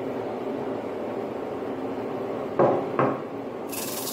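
Homemade drum sander running with a steady hum from its motor and spinning sandpaper drum. About two and a half and three seconds in, two sharp wooden knocks as a board is set down on the sander's table; near the end a loud hiss starts as the board feeds under the abrasive drum.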